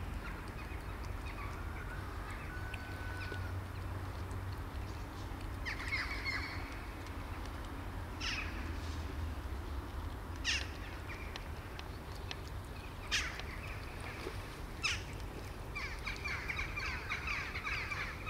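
A crow caws four times, about two seconds apart, over a steady low background rumble.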